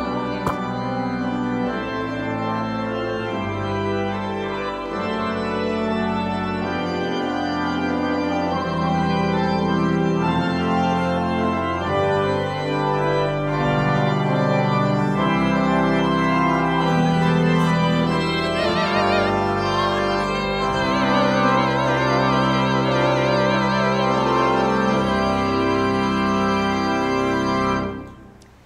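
Church organ playing a slow passage of long, sustained chords, with a wavering high note in the second half; it cuts off sharply near the end.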